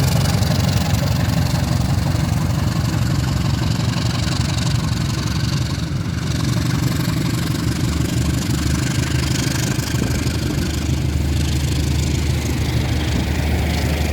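An engine running steadily: a low, even drone with a steady hiss over it, dipping slightly about six seconds in.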